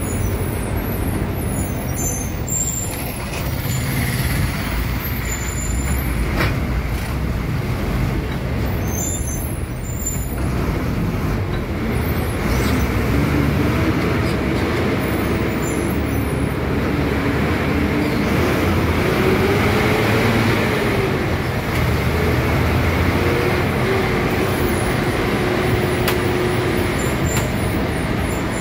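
KSRTC bus's diesel engine and road noise, heard from inside the cab beside the driver: a steady low rumble, with an engine note that rises and falls as the bus works down the winding hill road.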